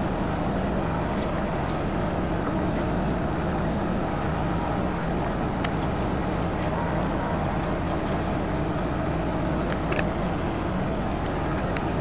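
Diesel engine of a TYM 2515H compact tractor running steadily while it works its backhoe digging roots, with scattered light clicks and creaks over the engine.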